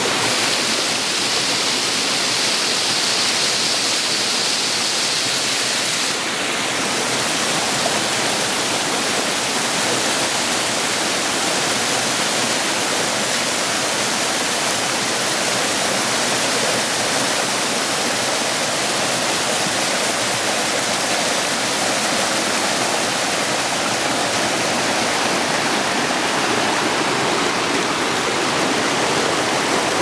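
A waterfall and the rocky mountain stream below it, rushing steadily as a constant, even hiss of falling and running water. The character of the rush shifts slightly about six seconds in.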